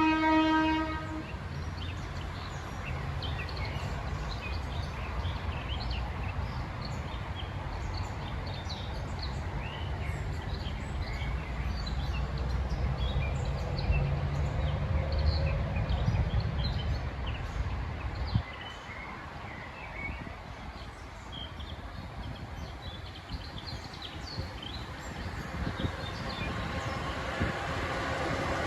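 A diesel locomotive's horn sounds one short blast, then the diesel-hauled train runs by with a steady low engine and wheel rumble that drops away after about eighteen seconds. Birds chirp throughout, and another engine note builds near the end.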